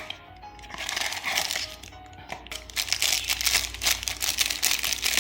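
Plastic packaging of a small knockoff Lego minifigure set crinkling and rustling as it is handled, in a short stretch about a second in and a longer one from about halfway to the end, over background music.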